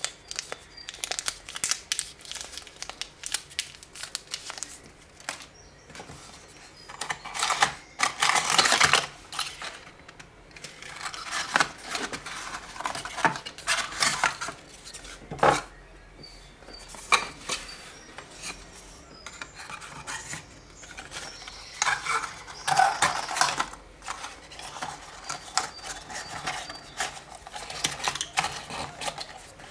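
Smartphone packaging and accessories being handled by hand: irregular small clicks and taps of hard plastic items, with paper or plastic wrapping crinkling and rustling. The crinkling is loudest about 7 to 9 seconds in and again around 22 to 23 seconds in.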